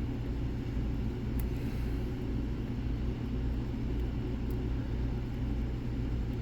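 A steady low background hum, with a few faint light ticks from a pick working the pins of an ASSA 600 pin-tumbler lock under light tension.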